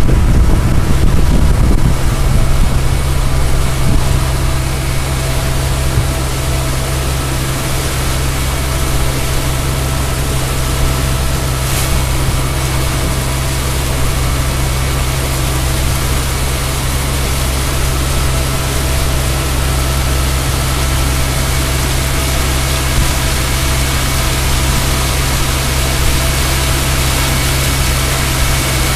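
Motorboat engine running at a steady, unchanging pitch, with water rushing past the hull. Wind buffets the microphone for the first couple of seconds.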